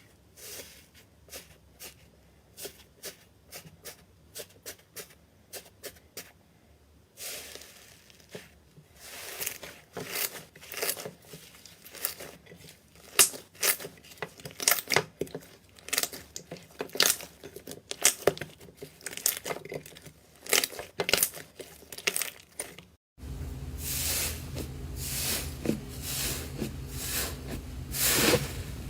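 Slime being squeezed and pressed by hand, giving a run of sharp, irregular clicks and pops from trapped air. The clicks come sparsely at first and grow denser and louder. After a short break about 23 seconds in, they continue over a steady low hum.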